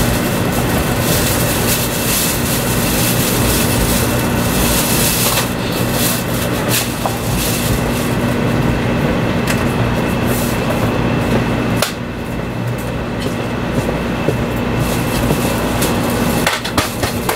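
Running noise of a 500 series Shinkansen heard inside the passenger car: a steady rumble and hiss with a faint steady hum. A few sharp clicks break through, the clearest about twelve seconds in, where the noise drops a little.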